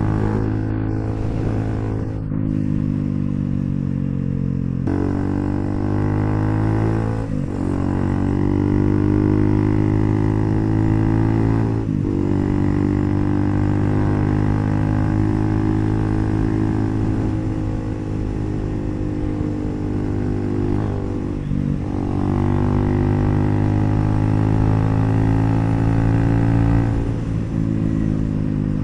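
Bajaj Pulsar NS400Z's single-cylinder engine running through an HP Corse aftermarket exhaust while riding. The engine note climbs in pitch and breaks briefly at each gear change, about five times.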